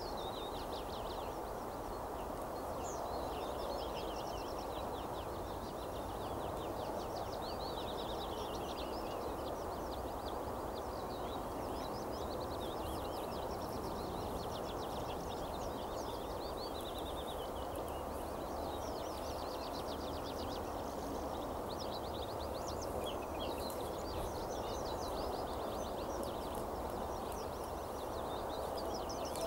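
Small songbirds singing quick, high trills and chirps over a steady rushing background noise.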